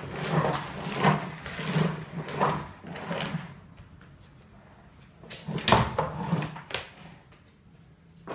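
Plastic wheels of a Trunki ride-on suitcase rolling and knocking over a wooden floor as a child scoots it along with his feet, in a run of pushes about one every two-thirds of a second, a quieter spell near the middle, then a few more pushes.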